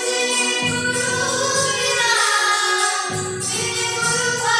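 A small group of children singing a song together, accompanied by a Yamaha electronic keyboard.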